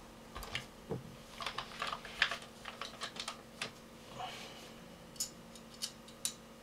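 Irregular small clicks and light metallic taps as screws are fitted into a rifle's RIS rail with a small tool, without tightening them fully.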